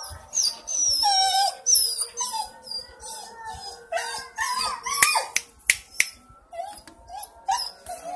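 Dog whining and howling in a string of short, high cries that waver up and down in pitch, with a few sharp clicks about five to six seconds in.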